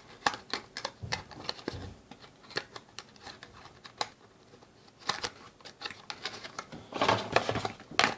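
Irregular light clicks, taps and rustles of cardboard and plastic packaging being handled, with a denser run of clicks near the end.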